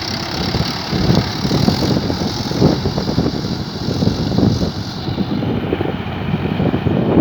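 Swaraj 843 XM tractor's diesel engine running steadily under load while pulling a plough, a rough, rapid pulsing throb.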